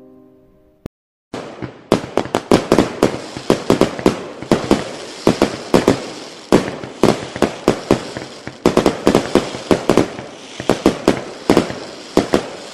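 Fireworks going off in a rapid, unbroken string of sharp bangs over a continuous crackle, starting about a second in after a brief silence.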